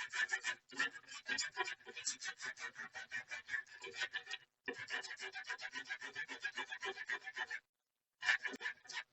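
A brush scrubbing a laptop motherboard in rapid back-and-forth strokes, about five a second, pausing briefly twice. The board is wet with sprayed detergent and is being scrubbed to remove corrosion from liquid damage.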